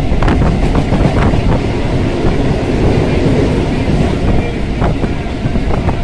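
Electric local train running along the track, heard from inside the carriage: a steady loud rumble of wheels on rails with wind on the microphone and a few sharp clicks of wheels over rail joints.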